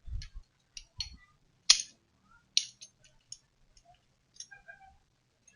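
A series of irregular sharp clicks and taps, with a low thump at the start and another about a second in; the loudest click comes near the middle.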